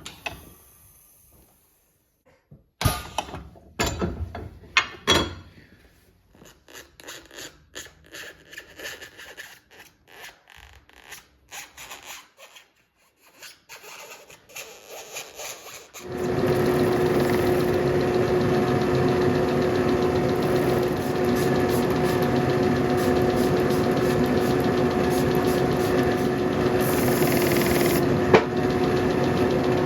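Shoe-repair hand work: sharp knocks and scraping strokes for the first half. About halfway through, an electric workshop machine starts and runs steadily with a constant hum.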